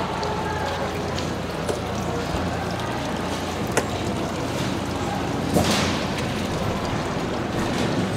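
Steady machine-like background hum and hiss, with a few sharp ticks and a short scrape a little past halfway as a long knife slices a raw tuna loin on a plastic cutting board.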